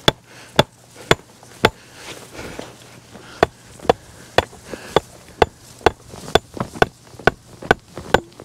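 Hatchet repeatedly striking a wooden stake, driving it into the muddy bank to block off a beaver run: sharp knocks about two a second, coming a little faster near the end.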